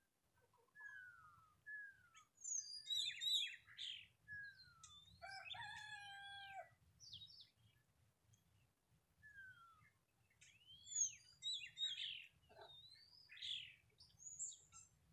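Several wild birds calling and singing in a chorus of short whistles, chirps and slurred falling notes. A rooster crows once in the middle.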